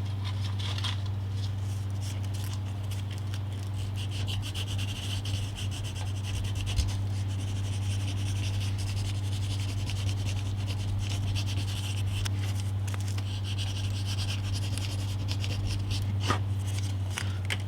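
Sandpaper rubbed by hand over the painted wood of a small model wall, distressing the paint, with strokes that come and go. A steady low hum runs underneath.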